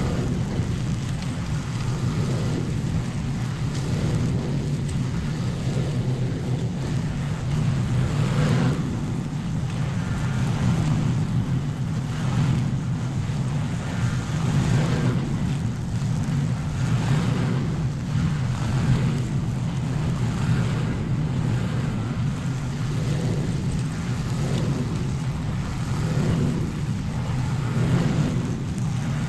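String trimmer running steadily while its spinning line cuts grass along a concrete driveway. The cutting noise swells every second or two as the head is swept back and forth over the grass and slabs.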